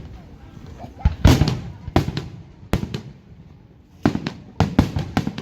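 Aerial fireworks bursting overhead: a dozen or so sharp bangs in irregular clusters. The loudest comes about a second in, and a quicker string of bangs follows near the end.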